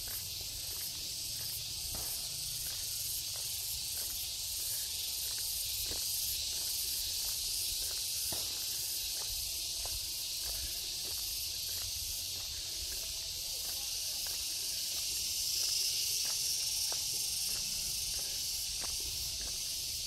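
Steady high-pitched insect chorus, an even shrill hiss that swells a little near the end, with faint footsteps on a path underneath.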